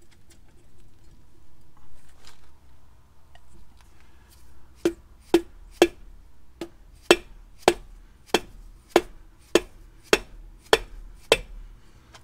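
Dead blow hammer striking the end of a one-piece front axle shaft to force its boot cap through the steering knuckle. A steady run of about a dozen blows, roughly two a second, starts about five seconds in after a few quiet seconds of handling.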